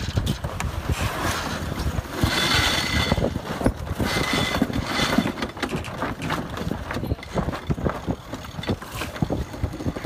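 Sailboat winches being worked and sheets hauled during a tack: many quick ratcheting clicks, and a brighter whirring twice, as lines run. Wind noise on the microphone throughout.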